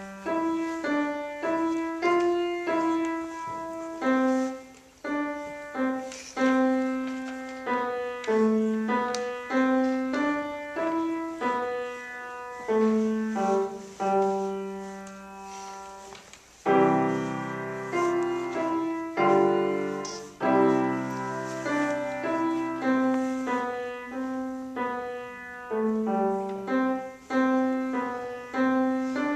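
Grand piano played solo at a moderate pace, mostly single notes over a simple lower line, each note ringing out and fading. About halfway through, the playing pauses briefly, then comes back with fuller chords before settling into single notes again.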